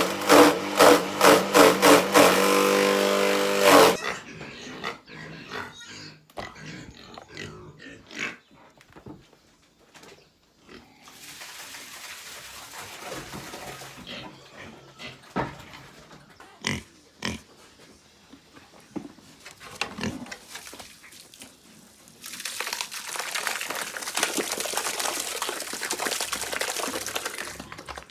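Pigs grunting, loudest in a fast run of rhythmic calls over the first few seconds, followed by scattered knocks and clatter and a steady rushing noise near the end.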